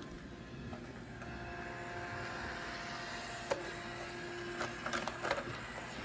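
iRobot Roomba robot vacuum running: a steady motor and brush whirr with a faint hum. A few light knocks come about three and a half seconds and five seconds in.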